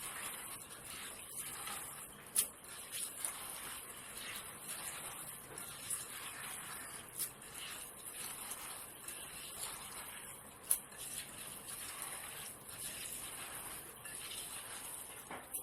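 Hands mixing washed rice and red lentils with oil and spices in a bowl: faint wet squishing and grain rustle over a steady hiss, with a few sharp clicks.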